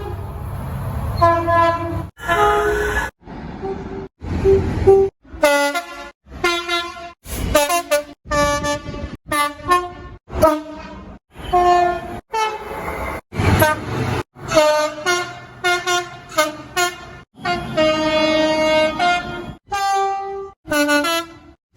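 Train horns in a rapid string of short clips cut abruptly one after another: many blasts under a second long, and one held for about two seconds near the end.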